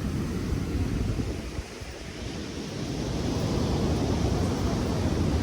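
Sea surf rushing with wind buffeting the microphone; the noise dips about a second and a half in and swells up again.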